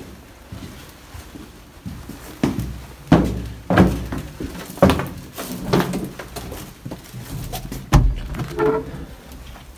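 Footsteps and irregular thuds in a cramped, echoing hallway, with a heavy thud about eight seconds in.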